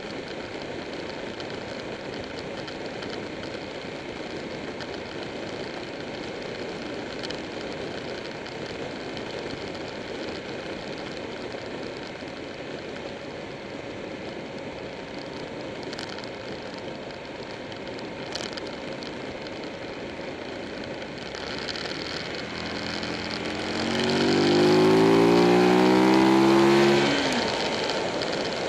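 Wind and road noise over a Buell 1125R motorcycle's V-twin engine at a steady cruise. About 22 seconds in, the engine note climbs in pitch and grows much louder as the bike accelerates for a few seconds, then eases back.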